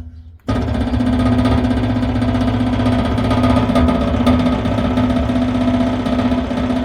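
Electric oil transfer pump switched on about half a second in, then running steadily with a loud buzzing hum as it works to draw thick gear oil into the bus gearbox.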